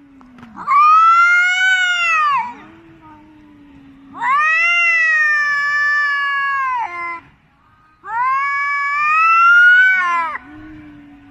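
A cat yowling: three long drawn-out calls, each rising and then falling in pitch, with a quieter, lower moan in the gaps between them.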